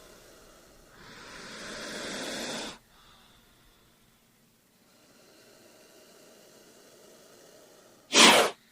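A snake hissing: one long hiss starting about a second in and growing louder for nearly two seconds before it cuts off. Near the end comes a much louder, sharp burst of hiss, under half a second long.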